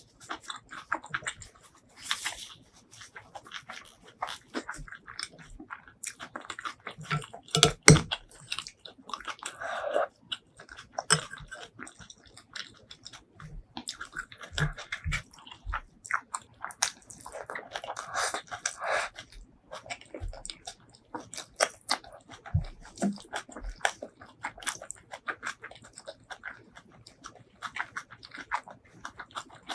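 Close-miked chewing and mouth sounds of a person eating shrimp curry and rice: wet smacking, squelching and crunchy clicks in an uneven run, with one louder sharp knock about eight seconds in.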